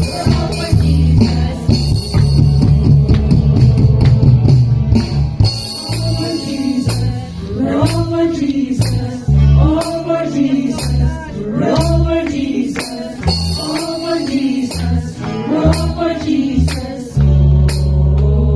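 Church band music: a singer over heavy bass and a steady percussion beat.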